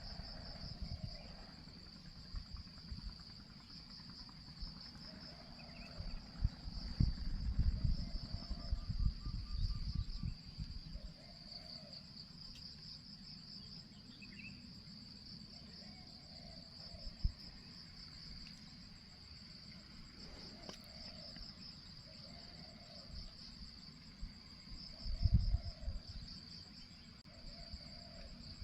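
Insects chirping steadily in a high, pulsing drone, with strong wind buffeting the microphone in low rumbling gusts, heaviest in the first third and again near the end. Faint low notes repeat every second or two underneath.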